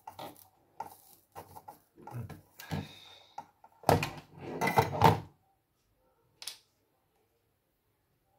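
Knocks and clatter of a soldering iron and a motherboard being handled on a workbench. Light clicks come first, then a louder burst of knocks about four seconds in as the iron is pulled away and the board is moved, and a last single click.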